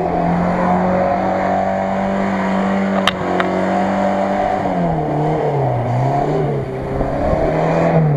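Ford Maverick SUV's engine running at steady revs, then revving up and down several times as it drives. Two short sharp clicks about three seconds in.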